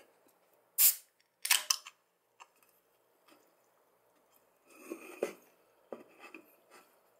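A can of Schweppes tonic water cracked open by its ring-pull: a sharp crack about a second in, then a few quick clicks from the tab, and the can being handled about five seconds in.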